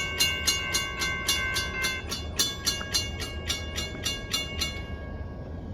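Railroad grade-crossing warning bell ringing rapidly, about three and a half strokes a second, each stroke ringing on; it stops a little before five seconds in, leaving a low rumble.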